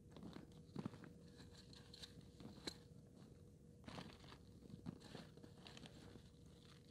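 Near silence with faint, scattered clicks and crunches of small handling noises.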